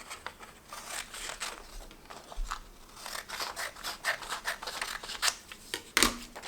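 Scissors cutting through a folded sheet of paper along its crease: a run of irregular snips and paper rasps.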